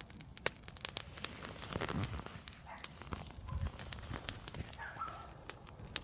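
Large bonfire burning, crackling with irregular sharp pops over a low rush of the flames.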